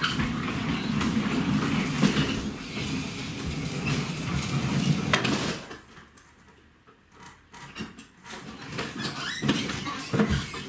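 A toy car's small motor running with rattling and clicking, cutting out about five and a half seconds in. Scattered knocks and clatter follow, then more rattling.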